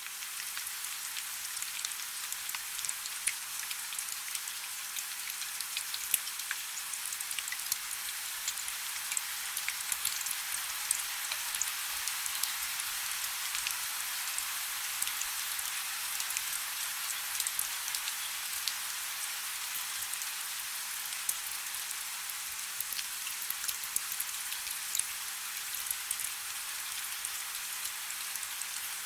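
Heavy rain falling steadily, a dense hiss of rain with many individual drops pattering sharply on a surface.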